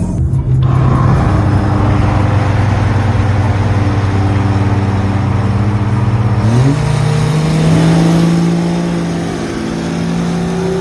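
Car engine running under throttle, holding an even pitch, then climbing to a higher pitch about two-thirds of the way through.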